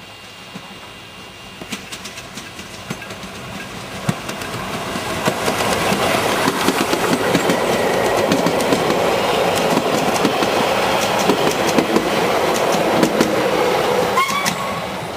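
Steam tank locomotive Wa 165 approaching and passing close by with its passenger carriages, growing steadily louder, with wheels clicking over the rail joints. Near the end there is a brief rising squeal, and the sound begins to fall away as the carriages go by.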